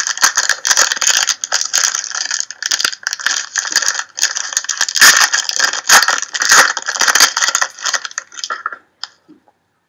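Plastic trading-card pack wrapper crinkling and crackling up close as it is torn open and handled. The crackle stops about nine seconds in.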